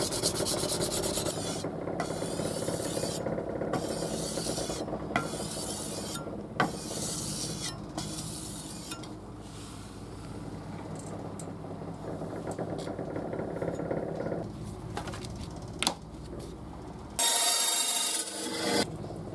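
Steel edge of an old cleaver being worked by hand with a file: long rasping strokes roughly every second and a half, over a steady low hum. The strokes turn lighter and scrappier later, and there is a louder, harsher scrape near the end.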